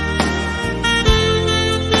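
Background music with a steady beat and a saxophone-like melody.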